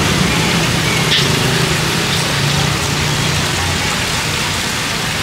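Hot oil sizzling steadily in a deep-fryer, with a low hum underneath for the first few seconds.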